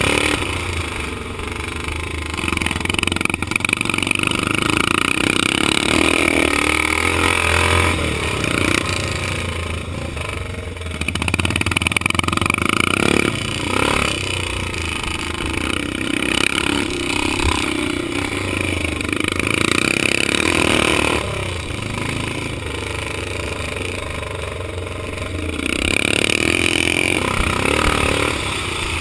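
Vintage motocross motorcycle engine heard from on board the bike while racing over a dirt track, rising and falling in surges as the throttle is opened and eased.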